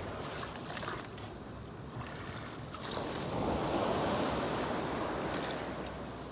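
Waves breaking and washing up a steep beach, one swelling in about halfway through and fading a couple of seconds later, with wind on the microphone.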